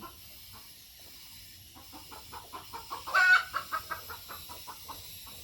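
A hen clucking in a quick run of short clucks, with one louder call about three seconds in.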